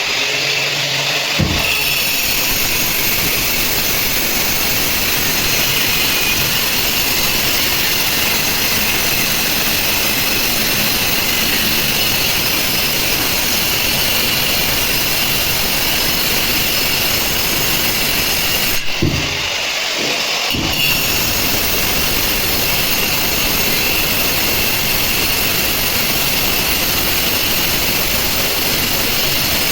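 A steady, loud machine noise like a motor running, briefly interrupted with a couple of knocks about two-thirds of the way through.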